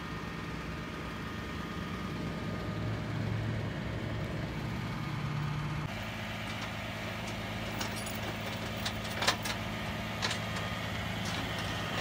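Flatbed tow truck's engine idling steadily, a constant low hum, with a few sharp clicks in the second half.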